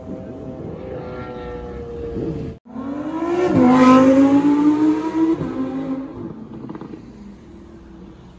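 A car engine note sinking in pitch, cut off abruptly about two and a half seconds in. Then a Lamborghini Huracán Performante Spyder's V10 revs hard as it accelerates away, climbing in pitch through two upshifts, loudest just after the cut, before fading into the distance.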